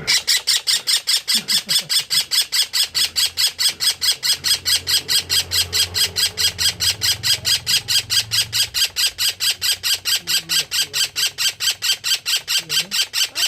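Young parrot giving a rapid, evenly spaced run of short harsh calls, about five a second, without a break.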